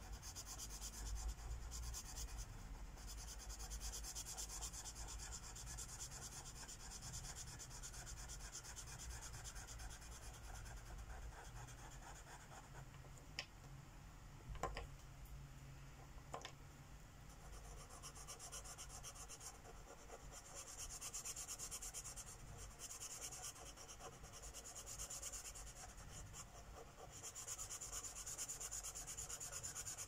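Sharpie permanent marker rubbing and scratching across a paper colouring page as small areas are filled in, coming and going in spells, with three light clicks around the middle.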